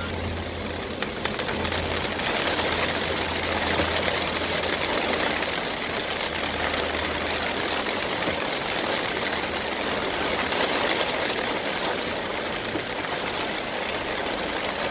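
Heavy rain drumming steadily on a car's roof and windscreen, heard from inside the cabin, with the car's engine humming low underneath that fades out about halfway through.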